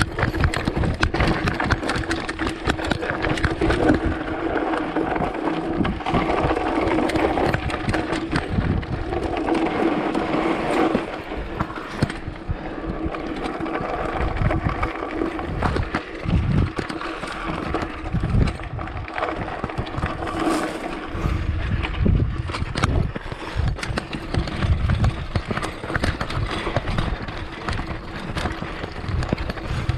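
A chainless mountain bike ridden fast down a rough dirt trail: tyres rolling over dirt and rocks, with the bike rattling and knocking continuously and wind buffeting the microphone.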